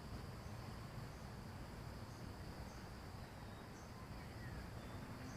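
Insects chirping in a steady high-pitched drone, with a low rumble underneath.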